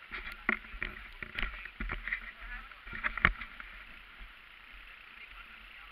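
Handling noise from a body-worn camera being adjusted on its mount: a run of knocks, clicks and rubbing over the first three seconds or so, the sharpest about three seconds in, then a quieter steady hiss.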